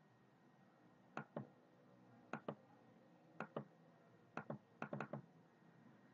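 Computer mouse button clicking: four short double clicks about a second apart, then a quick run of three clicks near the end.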